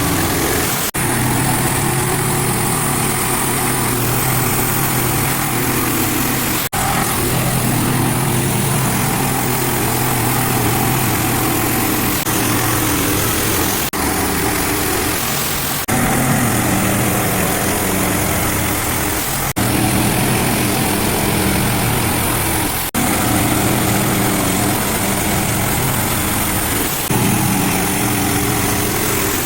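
Small gasoline engine of a portable bandsaw sawmill running steadily while the blade saws through a green ash log. The sound breaks off sharply and resumes several times.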